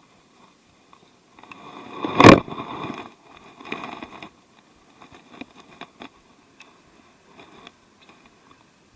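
Scraping and rustling handling noise with one sharp, loud knock about two seconds in, followed by scattered small clicks.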